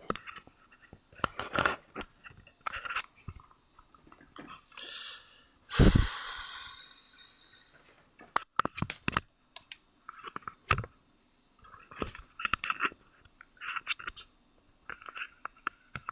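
Handling noise from a camera being moved and repositioned on its mount: irregular clicks, knocks and rustles close to the microphone, with a scrape and then a heavy thump about six seconds in that trails off.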